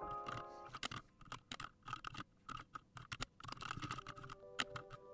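Computer keyboard typing: a quick, irregular run of key clicks.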